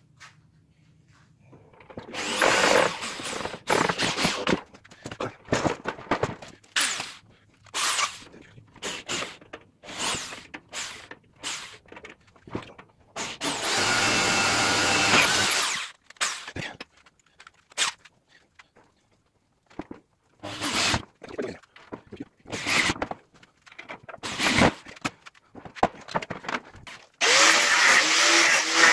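Handheld electric drill-driver run in many short bursts, with one longer steady whining run about midway, while the steel spring unit is screwed down to a plywood board. About two seconds before the end an angle grinder starts and runs steadily.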